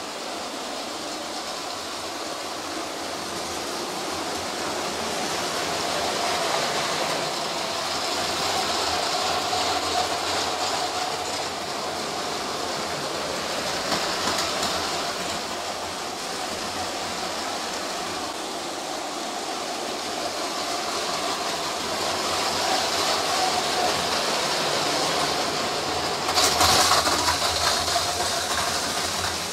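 Motorised Lego trains (a Horizon Express and a green passenger train) running on plastic Lego track: a steady motor whine and wheel rattle that swells and fades as they pass. Near the end comes a short, loud clatter as the trains collide at the junction.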